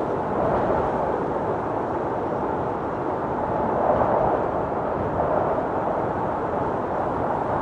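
Tornado wind rushing steadily as a loud, even, dense noise.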